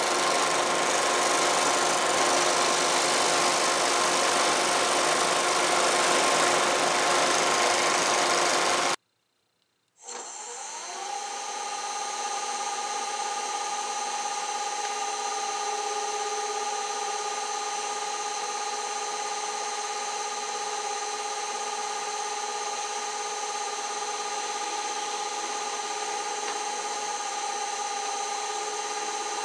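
Scroll saw running, driving a file up and down through a slot in a wooden chair part. It cuts off about nine seconds in; after a second of silence a drill press starts up with a sanding drum in its chuck, its motor whine rising briefly to speed and then holding steady.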